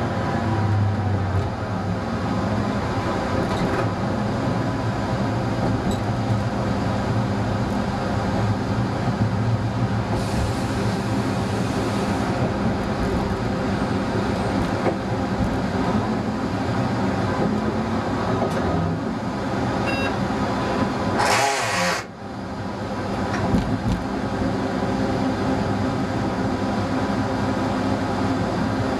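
Diesel engine of a ČD class 854 railcar running steadily, heard from inside the driver's cab as the train travels. A short hiss sounds about ten seconds in, and a brief louder rush of noise about twenty-one seconds in.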